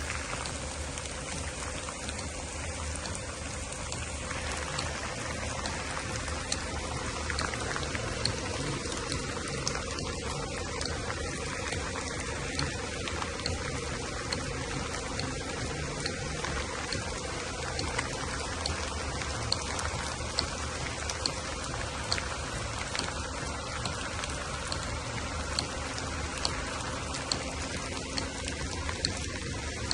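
Steady heavy rain falling, with many sharp drops pattering on a hard surface, and a faint steady hum underneath.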